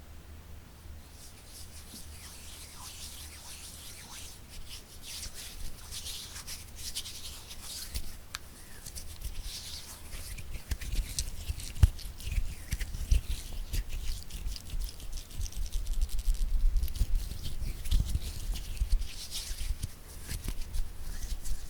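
Close-miked ASMR hand sounds: a steady rubbing hiss full of fine crackles, with soft low taps that grow more frequent and louder in the second half.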